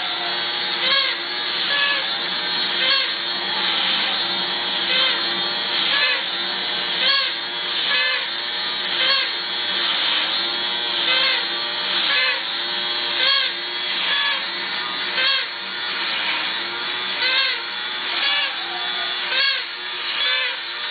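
Vintage battery-operated toy bear running: its small electric motor and gears whirr steadily. A wavering reedy tone from the toy accordion's bellows swells and bends about once a second as the accordion is squeezed in and out.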